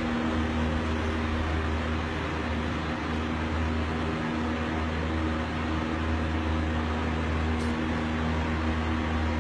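Steady machine hum with a low drone and an even hiss, like a running fan or motor.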